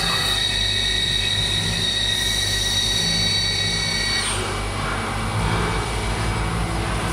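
CNC machine milling polyethylene plastic: a steady high-pitched whine over the machine noise that stops about four seconds in, after which the machine keeps running with a broader rushing noise and a low hum.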